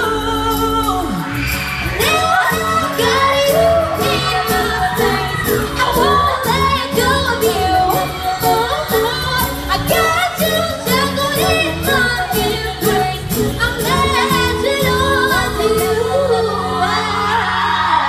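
Female vocal group singing live in close harmony through handheld microphones and a PA, over accompaniment with a steady beat.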